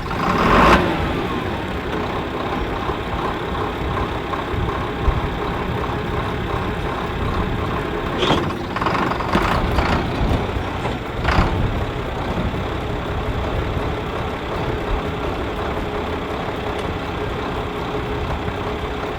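John Deere loader tractor's engine running steadily as the tractor is driven, with a few brief clanks partway through.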